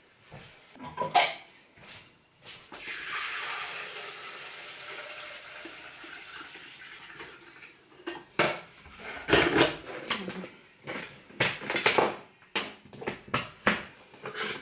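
Water running for about five seconds, then a run of clattering knocks and clinks as dishes and kitchen items are handled at the counter.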